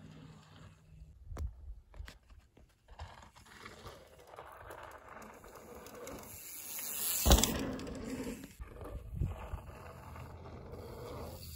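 Mountain bike tyres rolling on a dirt trail, growing louder as the rider approaches, with a sharp knock about seven seconds in and a smaller one about two seconds later.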